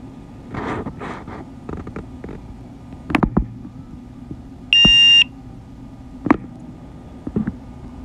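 A single loud electronic warning beep from the drone's remote controller, lasting about half a second, with a few short sharp clicks before and after it.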